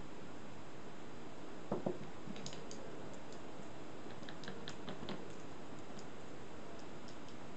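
Two soft knocks of a paintbrush being handled on the table, then a run of small, light clicks as the brush works paint in the pans of a watercolour paint box, over a steady background hiss.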